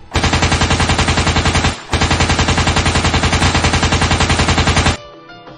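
Rapid machine-gun fire in two long bursts, broken by a short pause about two seconds in.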